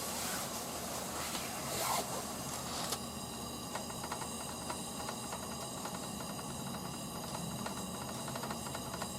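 Vintage Coleman pressure lantern burning with a steady hiss of fuel through the generator and mantles. The hiss is louder and brighter for about the first three seconds, then settles.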